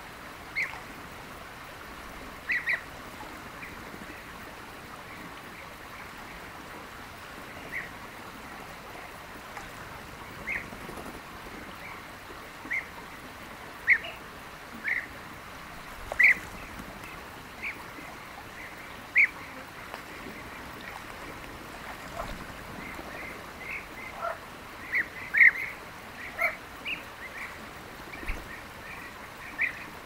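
European bee-eaters calling: short, rolling calls scattered through, coming thicker near the end, over a steady hiss of water.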